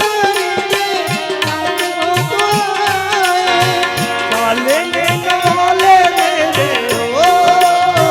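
Instrumental interlude of Indian devotional folk music: a melody instrument plays a bending, ornamented line over a steady run of hand-drum strokes whose bass notes glide up in pitch.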